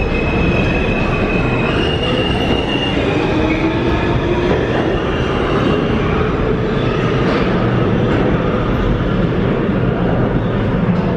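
Alstom R160A subway train pulling out of the station and accelerating away. A whine from its traction motors rises in pitch over the steady rumble of wheels on rail.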